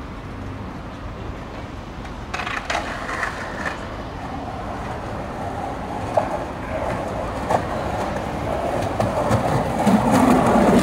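Skateboard wheels rolling over brick paving. The rolling starts about two seconds in, full of small clicks, with two sharper knocks along the way, and grows louder toward the end.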